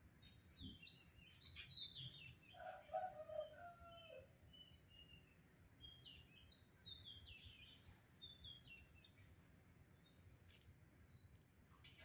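Faint chirping of small birds: many short, high calls throughout, with one longer, lower call that falls at its end about three seconds in.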